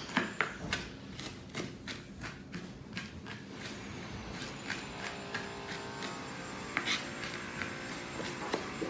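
Kitchen knife mincing an onion finely on a plastic cutting board: quick, uneven taps of the blade against the board, about three a second.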